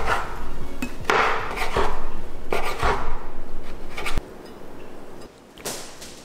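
Chef's knife dicing a peeled tomato on a wooden cutting board: a series of knife strikes knocking on the board at an uneven pace, louder for the first four seconds and softer after.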